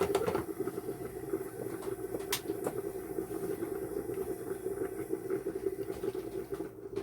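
Pot of rice and water boiling hard on the stove, a steady rapid bubbling, with one sharp click about two seconds in.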